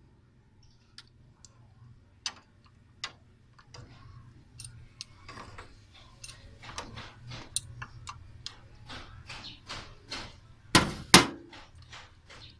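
Adjustable wrench on the brass coolant temperature sender, a run of light metal clicks and clinks as it is fitted and worked against the stuck sender, growing busier, then two loud knocks close together about eleven seconds in.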